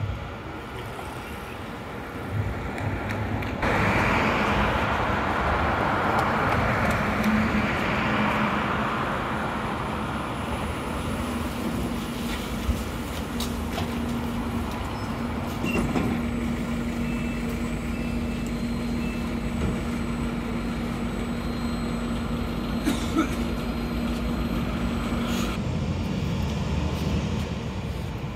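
A bus pulling in right alongside: a loud rush of engine and road noise, then a steady low engine hum for about fifteen seconds that cuts off suddenly near the end.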